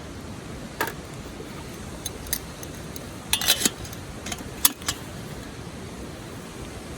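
A scattering of short, sharp clicks and light clinks, bunched most closely about three and a half seconds in, over a steady rushing background.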